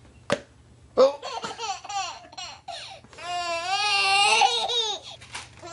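Baby laughing in short bursts, then a longer drawn-out laugh from about three seconds in to nearly five. A single sharp click comes just after the start.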